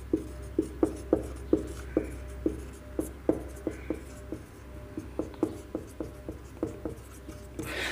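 Marker pen writing on a whiteboard: an irregular run of short squeaks and taps, one per pen stroke, about two or three a second, over a steady low hum.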